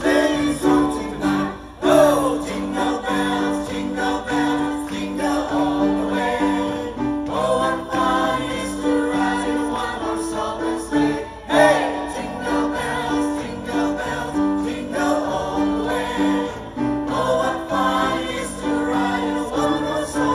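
A group of men and women singing a Christmas carol together from song sheets, with an instrumental accompaniment holding steady low notes beneath the voices.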